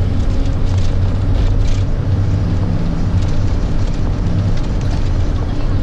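Steady low engine and road rumble heard from inside the cabin of a moving vehicle.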